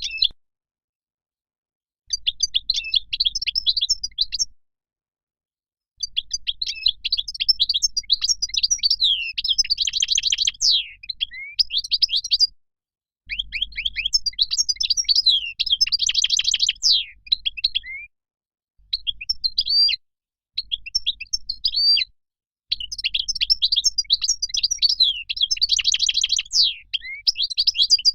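European goldfinch singing: rapid, high twittering song phrases of a few seconds each, separated by short gaps of silence.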